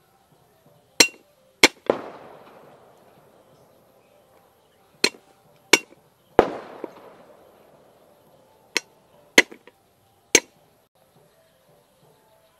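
Cleaver striking a wooden chopping board as garlic cloves are crushed and chopped: nine sharp knocks at uneven intervals, two of them trailing off slowly over a couple of seconds.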